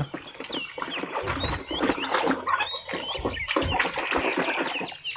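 Birds chirping, with many short irregular clicks and scrapes underneath.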